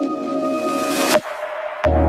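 Electronic background music: a few held tones under a swelling hiss that cuts off sharply just over a second in, a short gap, then ambient music with a deep bass and chime-like notes coming in near the end.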